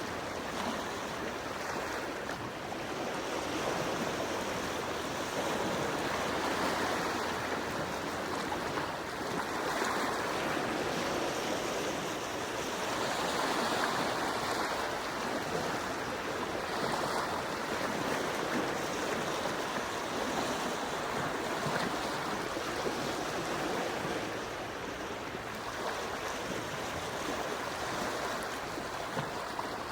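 Gentle sea waves washing onto the shore, a steady hiss of water that swells and eases every few seconds.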